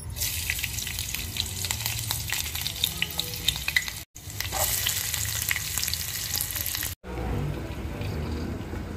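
Green chilli pieces frying in hot oil in an aluminium pot: a steady sizzle full of small crackling pops. After a cut about seven seconds in, the sizzle goes on softer and muffled under a steel plate covering the pot.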